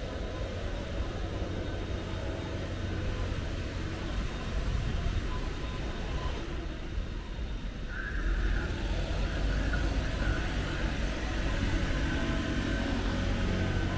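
Street traffic: a motor vehicle's engine running steadily, getting louder about eight seconds in.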